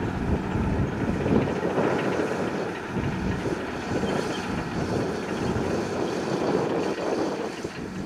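Diesel engine of a loaded Shacman F2000 dump truck running as the truck drives and turns on loose dirt, with wind buffeting the microphone.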